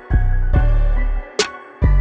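Background music with deep bass notes and a sharp hit about two-thirds of the way through.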